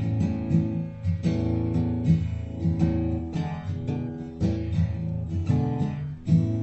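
Background music of strummed acoustic guitar, with a steady run of chords.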